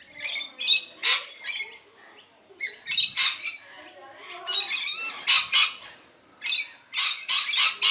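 Rainbow lorikeets screeching: harsh, shrill squawks in short clusters, several calls at a time with brief pauses between.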